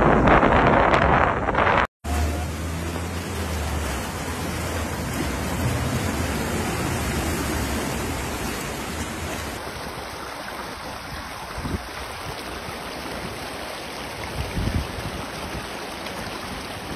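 Steady rushing of floodwater mixed with wind noise, broken by a sudden cut about two seconds in. A low hum sits underneath for a couple of seconds after the cut.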